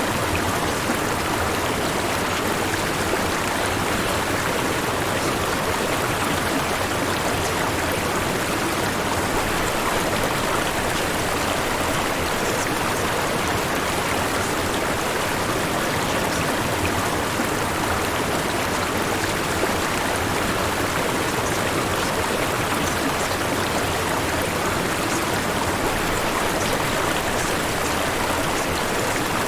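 Steady white noise: an even hiss spread across the whole range, holding the same level throughout.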